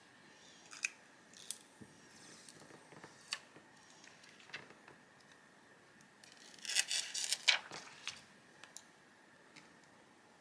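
Handling a tempered glass screen protector on a phone: scattered light clicks and taps, then a second-long burst of crinkling, crackling plastic film about seven seconds in.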